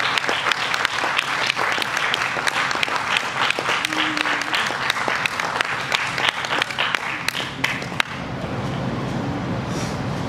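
A crowd of guests applauding, many hands clapping together, dying away about eight seconds in to a low murmur.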